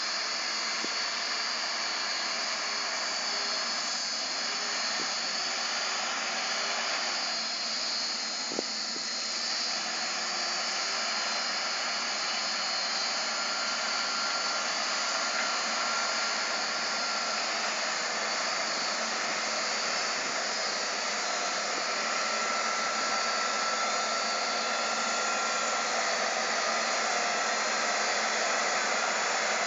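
Caterpillar 924H wheel loader's diesel engine running under load as it pushes a heap of soil with its bucket: a steady drone that grows slightly louder as the machine comes closer, with a faint high whine in the second half.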